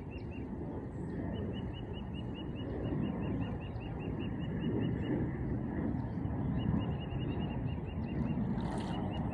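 Outdoor ambience: a steady low rumble of noise, with a rapid series of short high chirps repeating about five times a second in runs of a few seconds, pausing near the middle.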